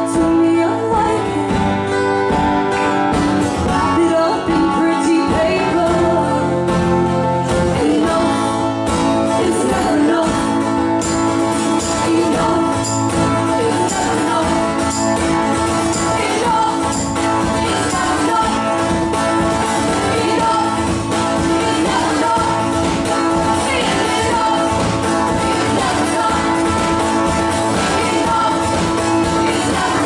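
Live folk-rock song: two acoustic guitars strummed steadily with female singing.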